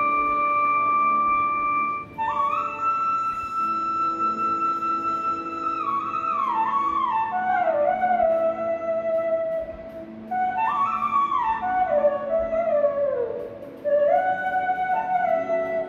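Instrumental background music: a flute melody over low held notes. It opens on a long held note, then moves in slow phrases that step downward in pitch.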